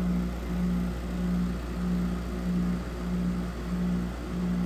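2008 Frigidaire 6500 BTU window air conditioner running with its compressor and fan on: a steady low hum with a throb that swells about one and a half times a second. The unit is starting to build pressure and barely cools, which the owner thinks may mean it is low on refrigerant charge.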